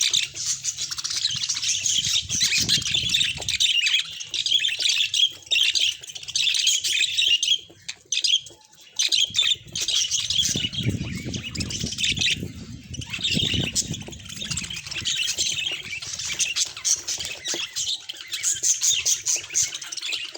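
Budgies chattering and warbling, a dense high twittering that goes on with only a short break about eight seconds in.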